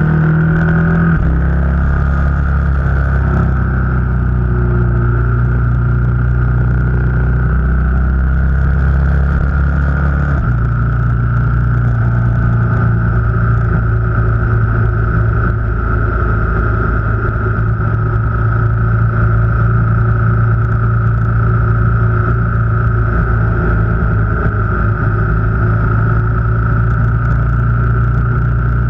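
Car engine and road noise while driving: a steady drone whose engine note shifts about a second in and again about ten seconds in.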